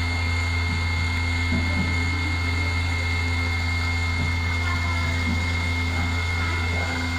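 The small 100 W spindle of a 2417 desktop CNC router running steadily with a low hum and a high whine, while its V-bit engraving tool cuts a shallow line into aluminium plate at a slow feed.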